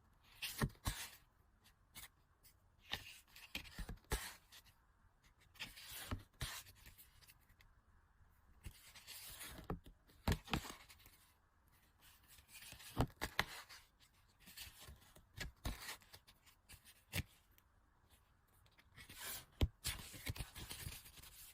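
Merchandise packaging handled and opened by hand: irregular rustling and crinkling of plastic and paper, with short clicks and light taps.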